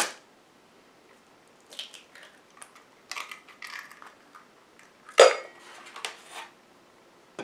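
Eggs being cracked against a stoneware mixing bowl and dropped into the flour mix: a sharp tap at the start, light clicks and handling noises, then a louder knock about five seconds in with a faint ring from the bowl.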